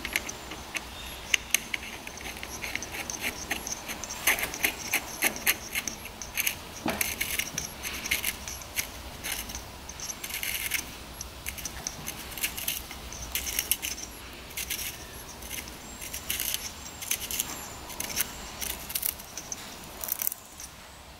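Light metallic clicks and clinks, irregular and in short runs, from the clutch hub, plates and washers of a 1993 Honda CR125 two-stroke engine as the clutch centre nut is spun on by hand over the lock washer.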